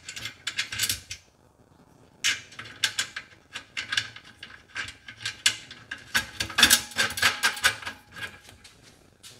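Small metal clicks and rattles as a bolt, washer and nut are fitted and threaded by hand at the metal hinge bracket of an aluminum folding loading ramp. The clicking comes in quick irregular clusters, with a short burst at the start and the busiest stretch about two-thirds of the way through.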